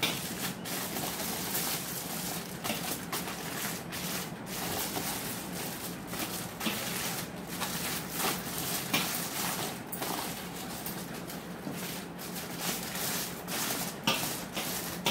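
Aluminium foil crinkling and rustling as hands wrap and roll it tightly around a log of dough, with many small sharp crackles throughout.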